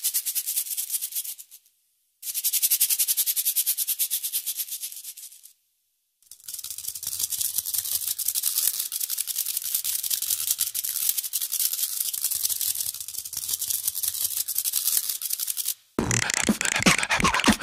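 Shakers shaken in a fast, steady rhythm, a high hissy rattle that stops briefly twice and then carries on. About 16 s in it cuts to a louder burst of beatboxing.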